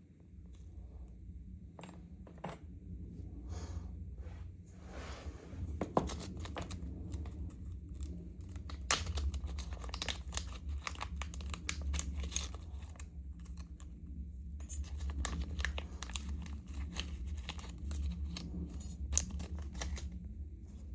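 Irregular small clicks, scrapes and rustles of a DOM ix 5KG dimple lock being handled and taken apart by hand, over a steady low hum.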